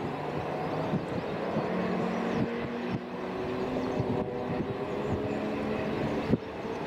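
Aircraft engines running steadily at low power while an aircraft taxis, a mix of low hum tones and rushing noise, with some wind on the microphone.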